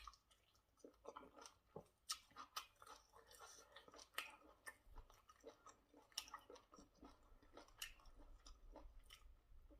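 Close-miked mouth sounds of someone eating pounded yam fufu and bitterleaf soup: soft chewing with irregular wet smacks and clicks, several a second.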